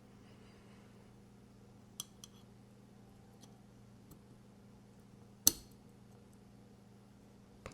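Small metal knife parts and tools clinking on a work surface: two light clicks about two seconds in and one sharp clink about five and a half seconds in, over a faint steady hum.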